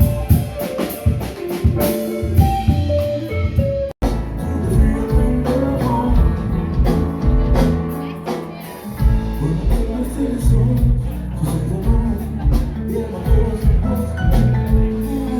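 Rock band music with drums, electric guitar and singing, cut abruptly about four seconds in and picking up again with drums and a steady bass line.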